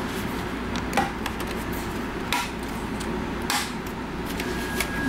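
Clips of a Wacom Cintiq Companion 2's aluminium back casing popping loose as the case is pried and lifted off the tablet: three short sharp pops about a second apart, over a steady low hum.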